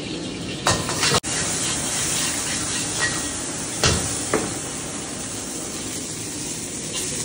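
Food stir-frying in a wok over a high flame: a steady hiss and sizzle, with a few sharp metal clanks of the ladle against the wok.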